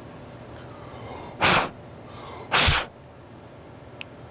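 Two short puffs of air blown into an open 3.5" floppy drive to clear dust out of it, about a second apart.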